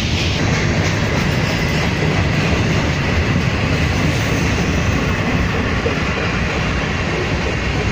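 Freight train cars, covered hoppers and boxcars, rolling past close by: a steady noise of steel wheels running on the rails.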